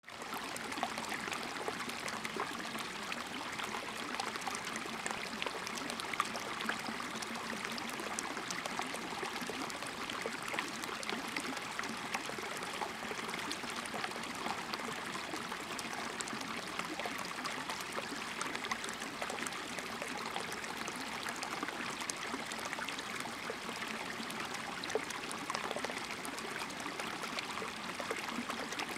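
Shallow rocky stream trickling over stones, a steady sound of running water.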